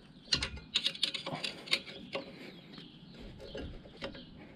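Small metal clicks and scrapes of a screwdriver working loose the pushrod cover clip on a Harley-Davidson Ironhead engine. There are several sharp ticks in the first couple of seconds, then quieter fiddling.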